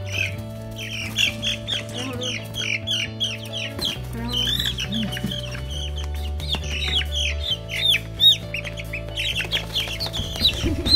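Young chicks peeping: a fast run of short, high, downward-sliding calls, several a second, with background music underneath.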